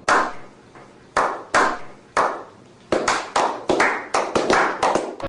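A series of sharp hand claps, a few spaced claps at first, then quickening to several a second over the last two seconds.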